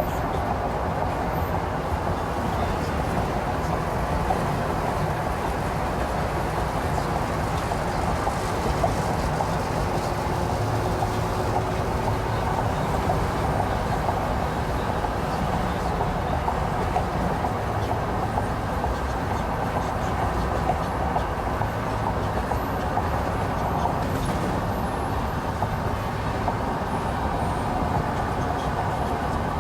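Steady road noise of a moving vehicle, an even rumble and hiss that does not change.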